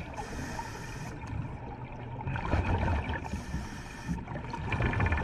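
Water bubbling and gurgling underwater over a steady low rumble, with bursts of higher hiss coming and going and a short run of fast ticks near the end.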